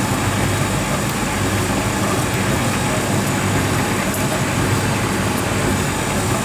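Bosch heat-pump tumble dryer running with its side panel off: the drum turning on its drive belt in a steady whirr with a low hum. The frayed belt, just put back on its pulley track, runs without the fault noise.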